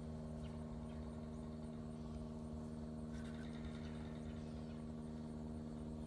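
A steady low mechanical hum of a motor running, holding one pitch with no change, and a faint short high chirp about three seconds in.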